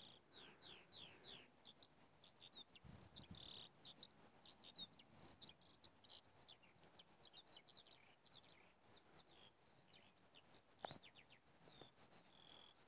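Faint birdsong from small songbirds: a near-continuous run of quick high chirps and short falling whistles. Late on, a single brief click.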